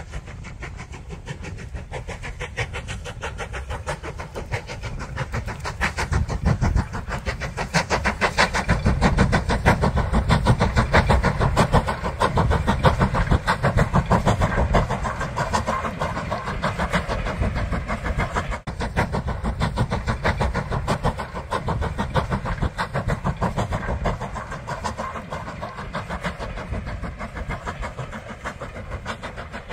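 Steam train running, a fast even rhythm of beats that grows louder several seconds in and eases off again in the second half.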